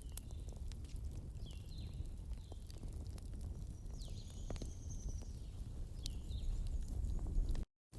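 Wood fire crackling and popping over a steady low rumble, with a few short, high, falling chirps in the background. The sound cuts out completely for a moment near the end.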